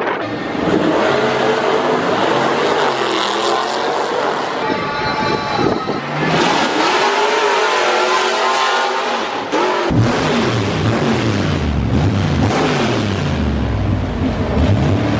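Pickup trucks racing on a drag strip, engines at full throttle, pitch climbing and dropping back several times as they shift through the gears. About ten seconds in it cuts abruptly to a deep, loud engine rumble close by.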